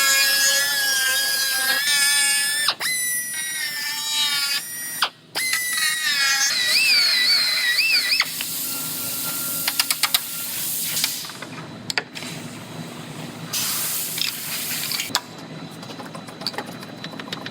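High-speed power cutting tool whining as it trims sheet metal on a car's quarter panel, its pitch wavering as the cut loads it. After about eight seconds it gives way to quieter scraping and clicking.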